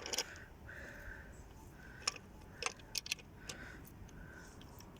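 A few light, sharp metal clicks and taps as an engine's connecting rod cap is handled and fitted onto its rod to test the match.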